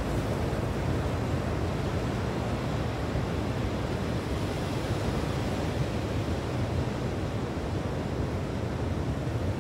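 Steady, deep rushing noise of wind on the microphone mixed with sea surf, even throughout with no distinct breaks.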